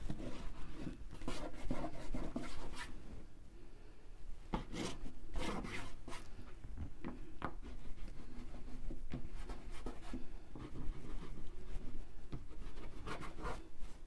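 Mungyo oil pastels being drawn and rubbed across Arches oil paper in short, irregular scratchy strokes, with a cluster of louder strokes about five seconds in and again near the end.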